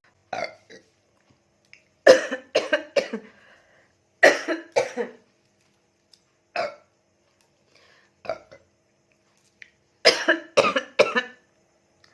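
A woman burping and coughing in short, sudden bursts after gulping Coca-Cola. There is a quick run of them about two seconds in, another around four seconds, single ones near six and eight seconds, and a last run of several about ten seconds in.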